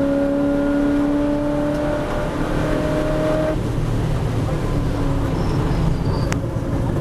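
V8 race car engine heard from inside the cockpit, pulling hard at high revs with its note climbing slowly as the car accelerates along the straight. About three and a half seconds in the steady note cuts off and gives way to a lower rumble as the driver lifts off and brakes for the corner.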